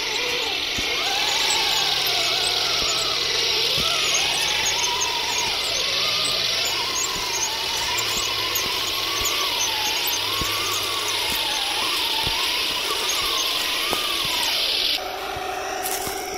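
1/16 scale Torro RC Sturmtiger model tank driving: a steady whirring hiss with a whine that rises and falls as the throttle changes, cutting off suddenly about fifteen seconds in.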